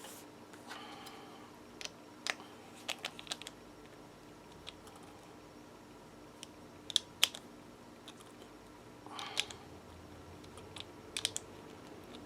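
Scattered small clicks and taps from handling carburetor parts and tools on a workbench, with a couple of short scraping rubs. The loudest are two sharp clicks about seven seconds in.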